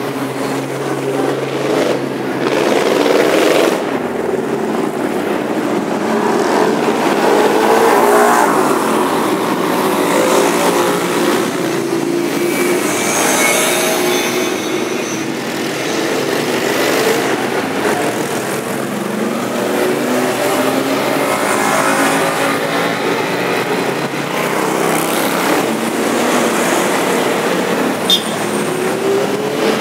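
A steady stream of motorcycles riding past one after another at parade pace, including a large touring bike, cruisers and sport bikes. Their engine notes overlap and rise and fall as each machine goes by.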